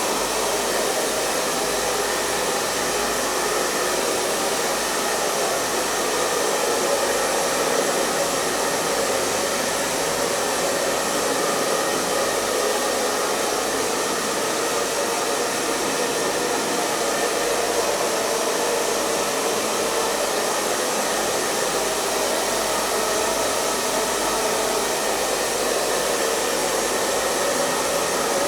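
Hair dryer running continuously at a steady speed, giving an even rushing noise of air and motor with no changes.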